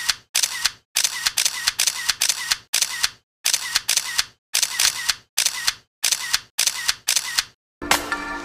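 Camera shutter clicks repeated in quick succession, about two a second, each followed by a brief gap of silence, like a shutter sound effect over a photo slideshow. Music starts near the end.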